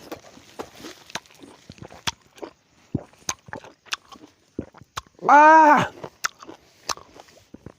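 Close-up mouth sounds of someone biting into and chewing a lime, with wet clicks and crunches spread throughout. About five seconds in comes one short, loud voiced sound that rises then falls in pitch.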